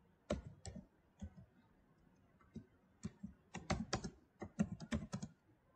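Computer keyboard keys being typed: a few scattered keystrokes, a pause, then a quicker run of keystrokes from about three seconds in.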